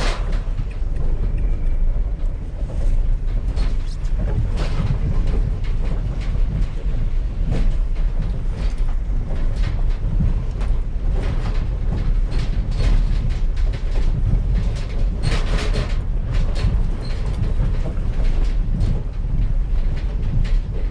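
A vehicle driving, heard from inside: a steady low road and engine rumble with frequent irregular rattles and knocks over it.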